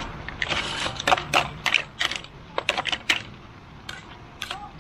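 Light clatter of camp cookware and food being handled: a string of irregular, sharp clicks and clacks.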